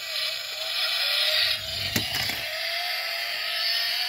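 Pullback toy car running across the mat, giving a steady mechanical whir with a faint tone that slowly rises, and a sharp click about two seconds in.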